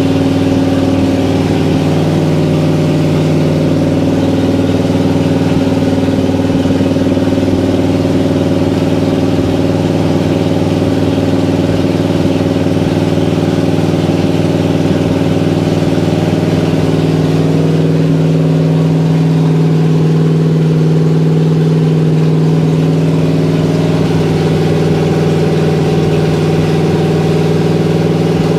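Truck's engine running steadily under the open hood, kept running to break in its new camshaft. Its note shifts slightly a little past halfway through.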